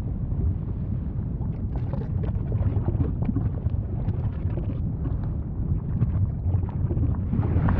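Volcano rumbling deeply, with a scatter of quick crackles and pops through the middle and a louder blast swelling in at the very end.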